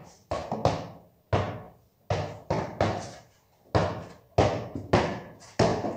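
A basketball dribbled on a concrete floor: about a dozen sharp, uneven bounces, two or three a second, each trailing off with a short echo off the walls.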